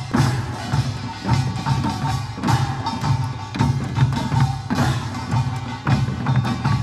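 Korean pungmul farmers' band playing a procession rhythm: barrel drums (buk) beat a steady pulse about twice a second under sharp strikes and ringing gongs.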